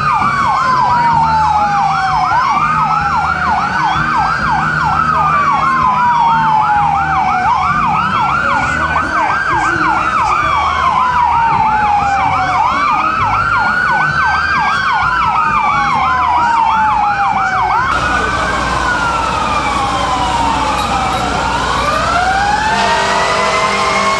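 Fire apparatus sirens sounding together: one winds slowly up and down about every four and a half seconds while another yelps in fast sweeps several times a second. About three-quarters of the way through, the sound changes to slower single rising and falling wails, and near the end a steady, horn-like tone joins in.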